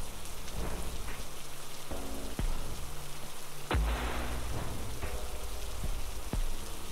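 A steady hiss like light rain, with faint soft tones now and then and several sharp clicks, the loudest nearly four seconds in.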